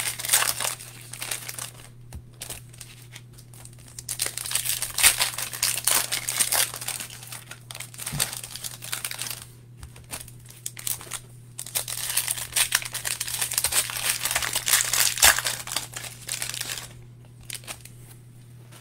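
Foil wrappers of Optic basketball trading-card packs crinkling and tearing as they are ripped open by hand. The crinkling comes in several bursts of a few seconds each with short pauses between, over a faint steady low hum.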